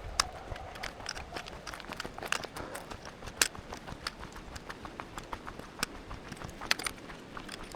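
Footsteps of a hiker on a stony mountain trail: irregular sharp clicks of hard soles striking rock, a few per second.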